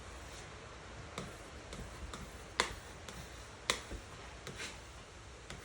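A few sharp, irregularly spaced clicks and taps, the loudest about two and a half and three and a half seconds in, from a plastic squeegee being worked over a wet vinyl decal on a car's glass roof.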